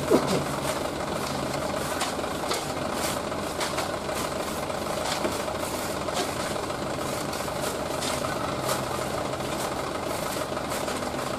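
Dump truck's diesel engine idling steadily, with scattered short scrapes and knocks from shovels digging into its load of sand.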